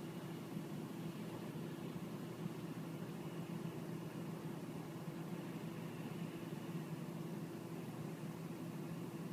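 A steady low hum over a faint even hiss, with no distinct bangs or events.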